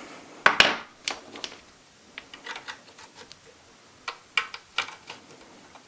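Hands handling computer parts: a series of sharp, irregular clicks and short plastic rattles, the loudest about half a second in.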